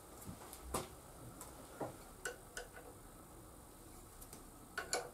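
Light, irregular clicks and taps of a wrench and an oil filler screw, about a dozen ticks spaced unevenly, as the screw is refitted over a fibre washer and tightened.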